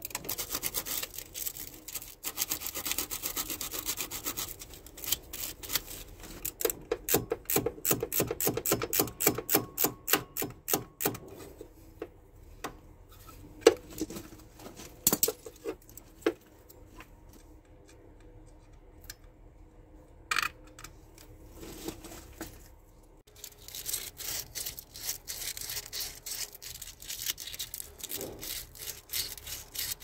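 Ratchet wrench clicking in fast runs as the bolts of a replacement starter motor are tightened, stopping and starting, with scattered single clicks and one sharp metal knock about halfway through.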